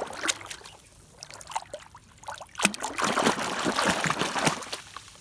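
Water trickling and splashing as a toy bus is washed by hand, the splashing getting louder and busier about halfway through.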